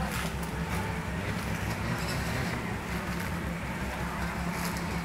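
Toyota Land Cruiser Hardtop's engine running steadily at low revs under load as the off-roader crawls up a steep dirt climb.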